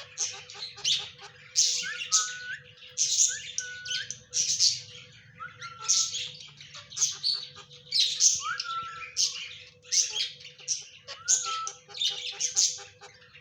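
Parrot calling over and over with harsh, screechy calls, about one or two a second. Short whistled notes that rise and then hold a steady pitch are mixed in.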